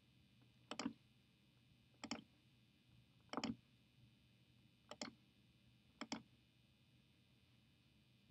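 Five computer mouse clicks, spaced a little over a second apart, each a quick double tick.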